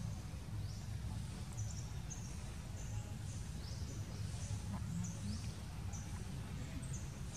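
Birds chirping outdoors in short, high, repeated calls, some sweeping upward, about two a second, over a steady low rumble of outdoor noise.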